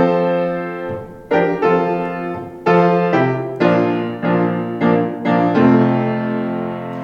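Piano playing a slow hymn introduction of struck chords, each ringing and fading away.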